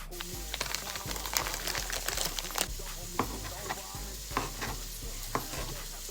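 Sausage and broccoli frying in a pan, sizzling steadily while a utensil stirs them, with scattered clicks and scrapes against the pan.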